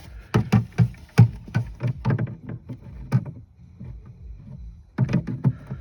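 Irregular knocks, clicks and rubbing of a plastic trunk trim panel being handled and pressed into place. The knocks come thickly for about three seconds, ease off, then come again near the end.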